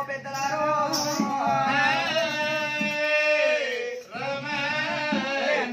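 A man's voice singing a drawn-out melodic line in Telugu Oggu Katha ballad style, holding one long note that bends downward about three and a half seconds in, then starting a new phrase.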